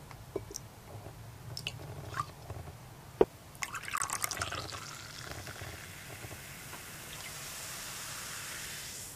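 A few light clicks and one sharp click about three seconds in. Then strongly carbonated sparkling water (Suntory THE STRONG) is poured from a plastic bottle into a glass over ginger syrup, followed by a steady high fizzing hiss of bubbles in the glass.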